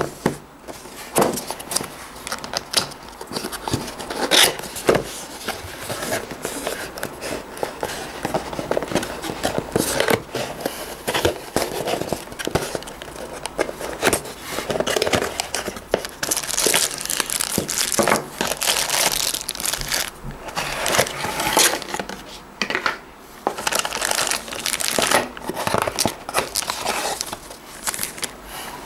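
Product packaging being handled: a cardboard box opened, plastic parts bags crinkling and a paper leaflet rustling, with irregular rustles, scrapes and small knocks throughout.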